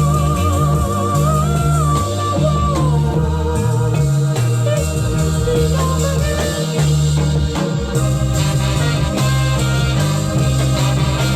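Soul song playing in a wordless band passage: bass and drums keep a steady beat, and a high note with vibrato is held over the first three seconds.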